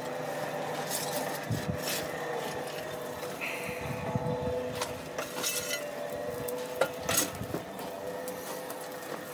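Hand-cranked forge blower running with a steady whine as it feeds air to a coal fire, with several sharp metallic clinks and scrapes of tools working in the coal.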